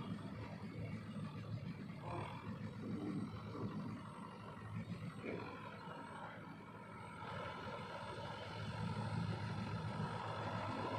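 Farm tractor engine running steadily, a low drone that gets a little louder in the second half.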